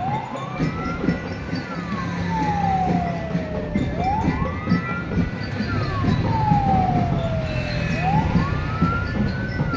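A siren wailing slowly: its pitch rises, then falls more gradually, about one cycle every four seconds, over a steady low rumble.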